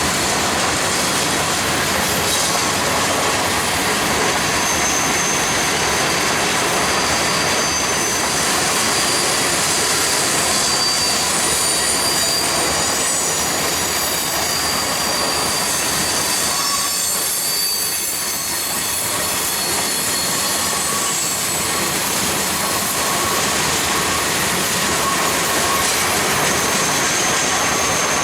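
A long freight train's cars rolling past: a steady, loud rumble of steel wheels on rail, with thin high wheel squeals coming and going.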